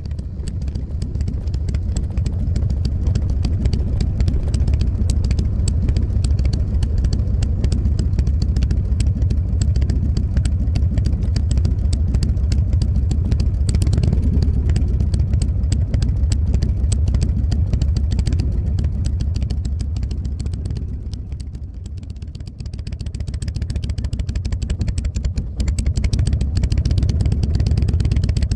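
Motorcycle running on the road while being ridden, a steady engine note that eases off about 21 seconds in and builds back up a couple of seconds later.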